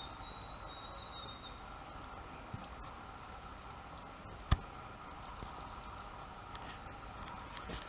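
Small birds calling with short, high chirps that drop in pitch, repeated many times over a steady background hiss. A thin steady whistle sounds for the first second and a half, and one sharp click comes about four and a half seconds in.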